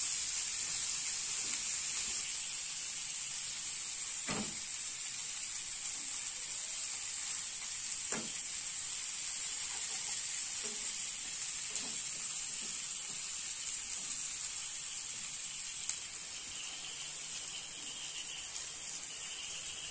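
Butter sizzling steadily in a hot aluminium pan as burger buns toast in it, with a couple of soft knocks about four and eight seconds in.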